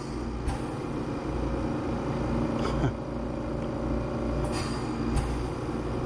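Packaged terminal air conditioner (PTAC) running with a steady hum and low rumble, with a few faint clicks from its wires being handled.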